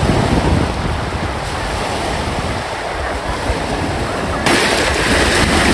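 Small waves of the Lagoa dos Patos washing onto a sandy shore, a steady wash with wind rumbling on the microphone. The wash gets louder and brighter about four and a half seconds in.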